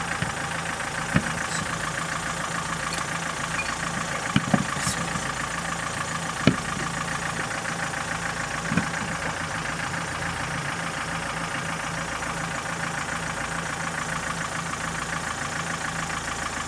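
Off-road vehicle engine idling steadily, with a handful of short sharp knocks over it, two of them close together.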